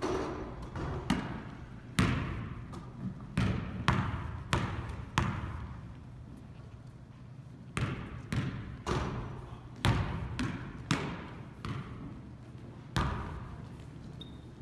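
Basketballs bouncing on a hardwood gym floor, each hit echoing around the hall. The thuds come irregularly, in short runs of several bounces with brief lulls between.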